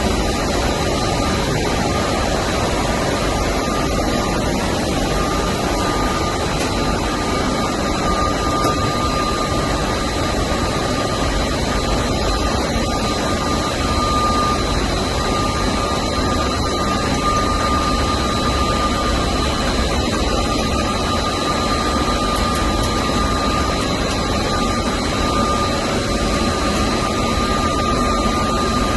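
Brückner stenter, a textile tenter-frame machine, running: a steady, loud blend of fan and drive noise with two thin, steady whines.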